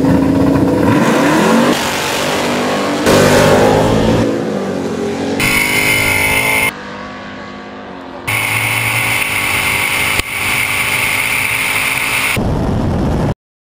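Two V8 drag cars, a small-block Chevy Nova and a Ford Mustang Cobra, launching at full throttle, heard mostly from a camera on the Cobra. Engines held at steady revs on the line, then pitch climbing through the gears from about a second in. The sound changes abruptly several times and cuts off suddenly near the end.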